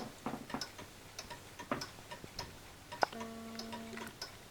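A mechanical clock ticking steadily. About three seconds in there is a sharper click, followed by a short steady pitched tone lasting about a second that cuts off.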